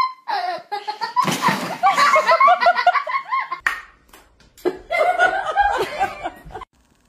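People laughing hard in two bouts of rapid, high-pitched ha-ha-ha laughter, the first from about a second in and the second a little after the middle.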